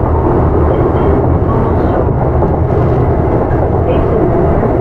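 Running noise heard inside a Kintetsu 8810 series electric train car: a steady, loud rumble of wheels on rail and the running gear as the train travels along.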